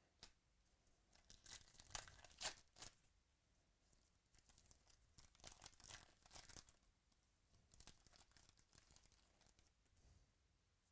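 Faint tearing and crinkling of a foil trading-card pack wrapper being ripped open by hand, in two main spells of crackling about one and a half and five seconds in, then lighter rustling.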